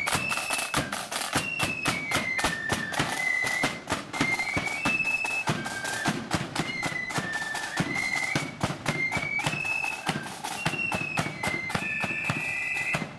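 Marching flute band of the blood-and-thunder style playing: a tune on the flutes over rapid, dense side-drum strokes and bass drum beats.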